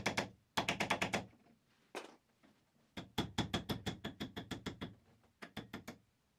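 Small hammer tapping an M3 screw held in pliers, driving the centre pin of a plastic rivet into the rod of a Volvo 850/V70 load cover roller. Quick light metal-on-metal taps come about eight a second, in several short runs with brief pauses between.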